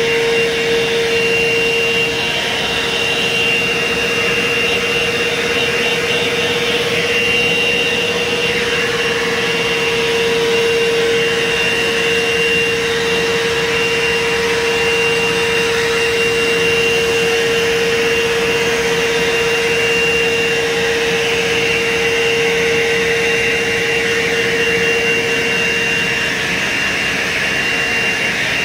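Pet grooming blow dryer running steadily as it blows a cat's wet coat dry: a constant rush of air with a steady hum and a high whine over it.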